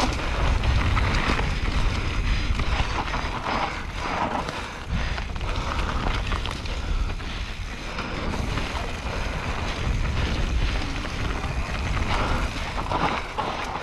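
Wind buffeting the microphone of a helmet-mounted action camera on a mountain bike descent, with the Rockrider AM100S mountain bike rattling and knocking irregularly over rough ground.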